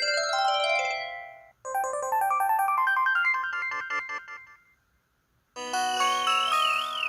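Built-in ringtone and alert jingles of an LG-SH210 mobile phone, played one after another. A short electronic melody ends about a second and a half in. A longer, busier synthesized tune follows and fades out at about five seconds. After a brief gap, a third chime begins, with a warbling tone over it near the end.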